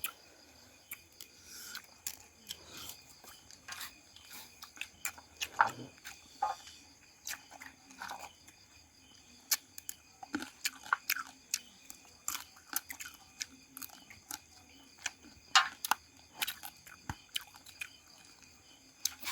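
A person chewing and crunching a mouthful of food close to the microphone: minced fish salad eaten with fresh raw vegetables, with many small irregular crunches and mouth clicks.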